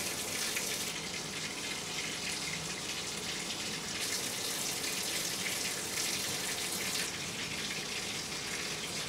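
Bathtub tap running cold water into the tub: a steady splashing hiss in a tiled, echoey bathroom. Its brightness shifts every few seconds as the playback switches between a condenser and a dynamic microphone.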